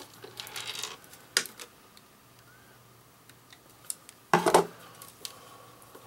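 Handling noises of slip-joint pliers and the plastic three-way bullet-connector insulator: a rustle, a sharp click, then a short, loud clatter about four seconds in as the steel pliers are set down on the wooden bench.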